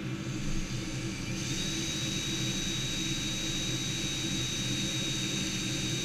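Electric drill running steadily while drilling holes through a steel strap, with a steady high whine from the bit cutting the metal starting about a second and a half in.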